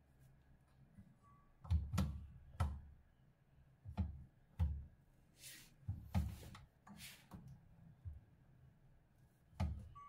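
Irregular knocks and thunks, about ten of them over several seconds, from hands and a tool working at a washing machine's motor mount while the drive belt is being tensioned. Two brief rustling sounds come near the middle.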